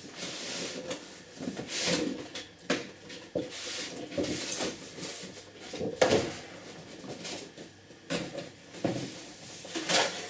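A cardboard power-supply box being opened and unpacked by hand: cardboard rubbing and scraping, with several sharp knocks, the loudest about six seconds in.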